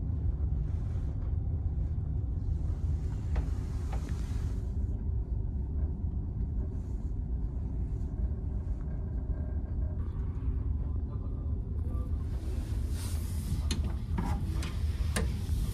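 Steady low rumble of the ferry's engines carried through the cabin, with a few faint clicks. Near the end comes the rustle of a jacket and sharp clicks of its hanger as it is handled in the wardrobe.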